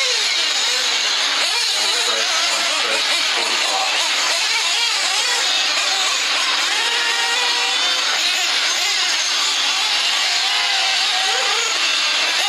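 Several 1/8-scale nitro RC buggies racing together, their small glow engines buzzing and rising and falling in pitch as they accelerate and brake, in a dense, overlapping drone.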